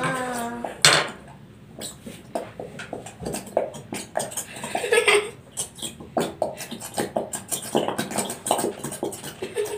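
Plastic glue bottles squeezed into glass bowls: a run of soft clicks, squelches and sputters as the glue is forced out, with a louder knock about a second in.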